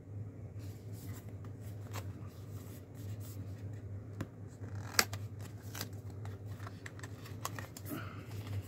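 Small cardboard knife box being handled and opened: paperboard scraping and rubbing with scattered clicks, and one sharp snap about five seconds in, over a steady low hum.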